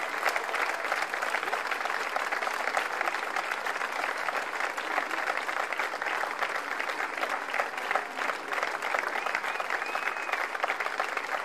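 A large audience applauding, steady dense clapping from many hands.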